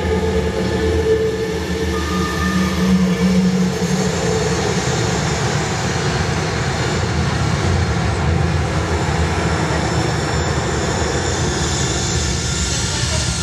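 Soundtrack of the projection show playing over loudspeakers in the stone quarry hall: held music notes fade out about four seconds in, giving way to a loud, steady rumble with a hiss that builds near the end.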